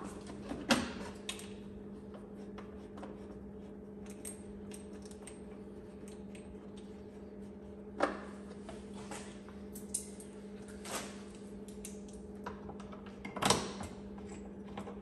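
Light clicks and knocks of metal hardware and panels being handled while an enclosure door is fitted onto a UTV with its bolts started loosely by hand. Three sharper knocks come about a second in, about eight seconds in and near the end, over a steady low hum.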